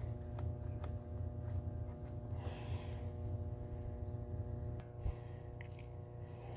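A few light clicks and a rustle as the telephone's housing is handled and lifted off the dial, with a sharper knock about five seconds in. A steady electrical hum runs underneath.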